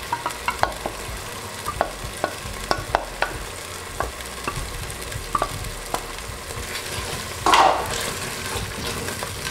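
A wooden spoon knocking and scraping against a steel bowl and the rim of a stainless-steel pot as tomato paste is added, over a steady low sizzle of the frying pilau base. About seven and a half seconds in, a louder rush of stirring and sizzling as the paste is worked into the pot.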